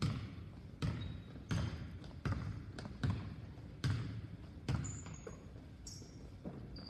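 A basketball dribbled on a hardwood gym floor: steady bounces about every three-quarters of a second, each thud echoing in the gym. The bouncing stops about five seconds in.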